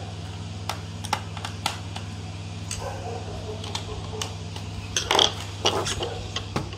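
Small screwdriver driving screws back into an HP ProBook 440 G5 laptop after a keyboard change: scattered sharp metal clicks and taps, with a louder rattle of clicks about five seconds in, over a steady low hum.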